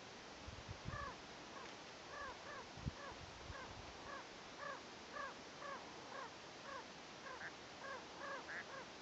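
Birds calling over and over, short arched calls about two a second, starting about a second in. A few low bumps sound in the first three seconds.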